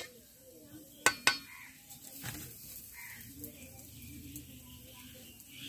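A metal spatula clinks twice, quickly, against an iron kadai a little over a second in, over faint sizzling of whole spices frying in mustard oil.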